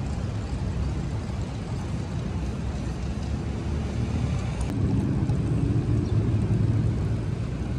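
Outdoor city ambience: a steady low rumble of traffic and wind on the microphone.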